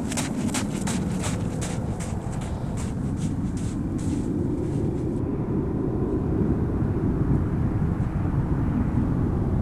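Running footsteps crunching in snow, about three steps a second, stopping about five seconds in, over a steady low rumble that slowly grows louder.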